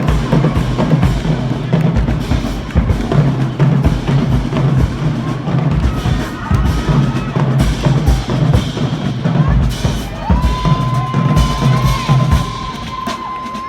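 High school marching band drumline playing a marching-in cadence: rapid snare and booming bass drums in a steady, dense rhythm. A long held high tone sounds over the drums for the last few seconds.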